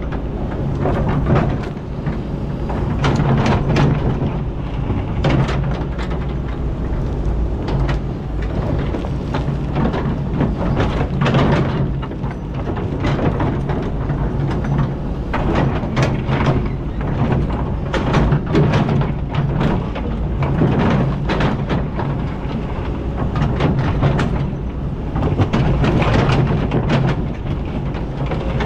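Hydraulic excavator's diesel engine running steadily, heard from the cab, with frequent clanks and scrapes as the steel bucket digs into sand and rocks.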